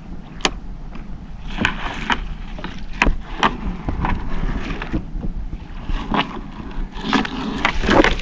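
Irregular knocks and clatter, about a dozen sharp hits spread unevenly, over a steady low noise of wind and water on a small fishing boat.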